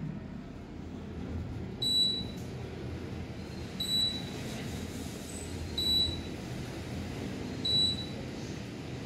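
Otis Series 2 elevator car travelling upward: a short, high beep sounds as it passes each floor, four times about two seconds apart, over the steady low hum of the car in motion.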